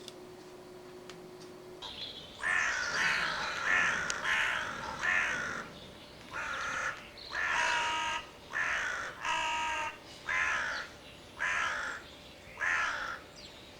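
Fearnot mouth-blown crow call sounding a run of about a dozen short caws. The first few come in quick succession, the rest about a second apart.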